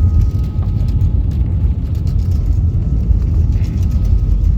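Airbus A320-200 cabin noise: a loud, steady low rumble with a faint thin whine from the engines.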